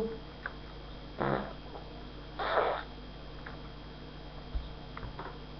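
A person breathing out sharply twice, two short breathy puffs about a second apart, with a few faint clicks and a soft low bump near the end.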